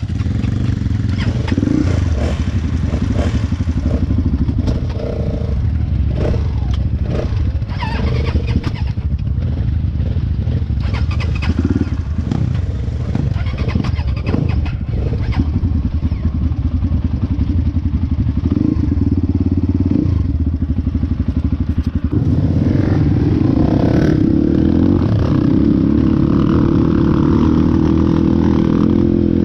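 Motorcycle engine running under way, with scattered clattering knocks over the first half. About two-thirds of the way through, the engine note rises and holds louder and steadier.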